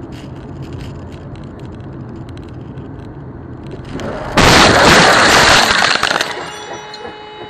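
Car collision heard from inside the dashcam car: a steady engine and road rumble, then about four and a half seconds in a sudden loud crash that lasts nearly two seconds and dies away. Near the end a few steady tones are left.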